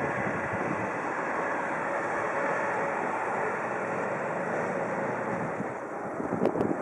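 Passenger train rolling slowly past behind an SJ Rc electric locomotive: a steady rumble of wheels on rails, with wind on the microphone. There are a couple of sharp clicks near the end.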